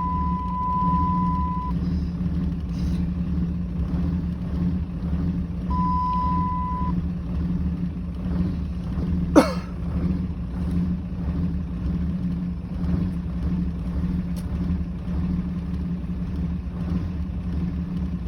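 Car engine idling roughly, a steady low running sound. A steady high beep sounds twice in the first seven seconds, and a single sharp click comes about halfway through.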